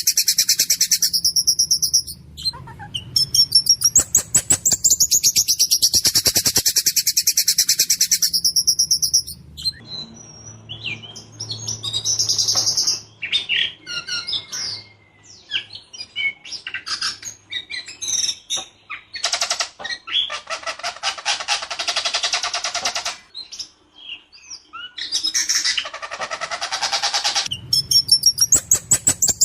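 A ciung batu songbird singing loudly and without pause. It opens with long runs of rapid rattling repeated notes, moves to a varied string of short whistles and harsher buzzy phrases, and returns to a rapid rattling run near the end.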